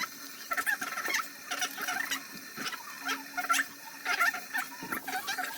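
Wet, soapy hands rubbing together under a running tap, making quick squelching squeaks in irregular clusters through a handwashing routine.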